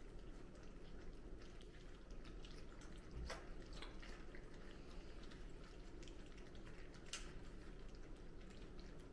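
Goldendoodle puppies lapping and smacking at wet puppy mush in a shared bowl: many small, soft wet clicks, with two sharper clicks about three seconds in and again about seven seconds in.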